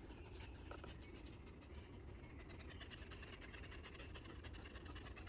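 Jindo dogs panting faintly and quickly, worn out from running.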